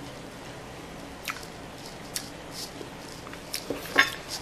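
Soft mouth sounds of tasting raspberry jam off a spoon, with a few faint smacks. About four seconds in, a metal spoon is set down on the table with a short clink, the loudest sound.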